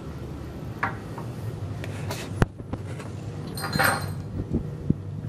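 Metallic clicks and clatter of steel clutch parts being handled and fitted on the machine's shaft, with a sharp click about two and a half seconds in and a brief ringing metal rattle near four seconds, over a steady low hum.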